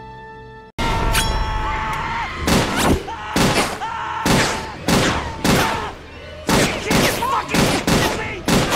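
A man screaming over a rapid string of about ten gunshots, starting abruptly about a second in.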